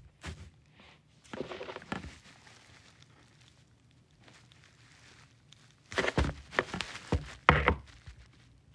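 Soft knocks and rustling handling noise close to a phone's microphone. A short cluster comes about a second and a half in, and a louder run of several knocks comes between about six and eight seconds in.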